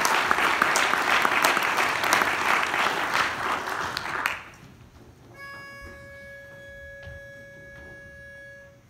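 Audience applauding, dying away about four seconds in; then a pitch pipe sounds one steady note for about three seconds, giving the barbershop quartet its starting pitch.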